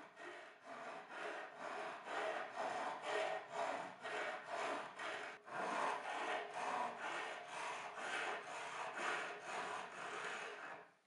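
Flat hand file rasping across a steel T-nut to file off its pins, in quick even strokes of about three to four a second, with a short pause about halfway through.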